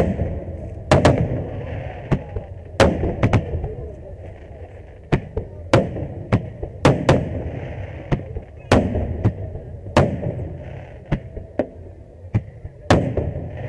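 Aerial firework shells bursting overhead in an irregular series of about twenty sharp bangs, each followed by a low rumbling echo.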